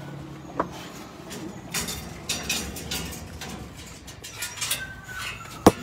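Metal wire dog cages rattling and clanking as a dog is handled into one, with a series of short clicks and a sharp loud clank near the end.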